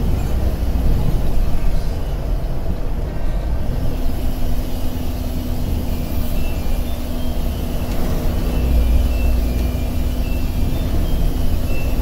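Intercity bus running at night, heard from inside the cabin: a steady, loud low rumble of engine and road noise, with a thin steady hum joining about four seconds in.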